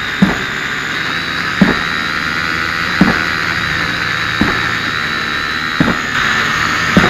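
Hydraulic impact hammer of a Junttan PM 25 pile-driving rig striking a steel pile, six sharp blows about every 1.4 seconds, heard over the steady whine of a small drone's propellers close to the microphone.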